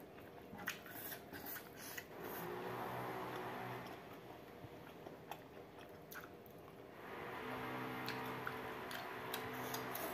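Close-up eating sounds of a person eating rice and pork curry by hand: chewing and biting with sharp mouth and finger clicks. A steadier humming sound comes in about two seconds in, fades out near the middle, and returns past seven seconds, louder than the eating.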